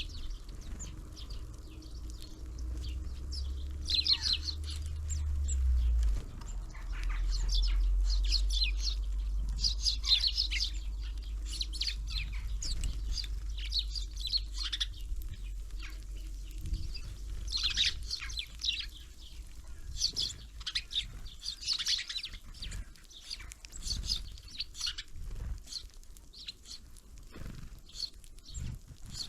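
Small songbirds at a winter bird feeder, calling with many short, quick chirps throughout. A low rumble underlies the first twelve seconds or so.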